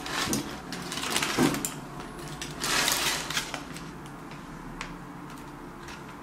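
Aluminium foil and paper food wrappers crinkling as they are handled, in a few short rustles over the first three seconds, then quieter.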